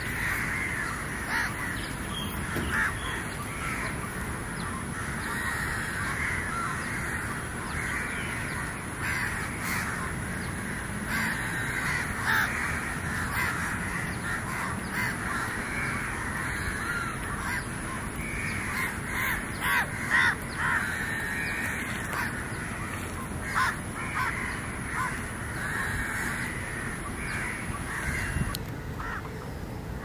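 A dense chorus of many birds calling at once, the calls overlapping without a break.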